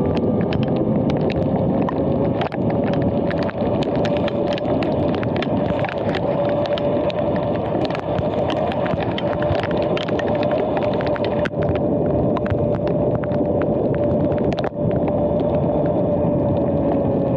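Sur-Ron X electric dirt bike under way on wet pavement: a steady electric drivetrain whine that climbs a little in the first few seconds and eases down near the end, over the hiss of knobby tyres through water, with frequent small ticks and clicks.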